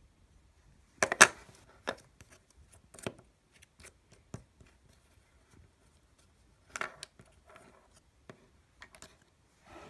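White plastic EarPods storage case clicking and knocking as it is handled and set down on a wooden table, with light rustling. The loudest cluster of clicks comes about a second in, with scattered clicks after it and another burst near seven seconds.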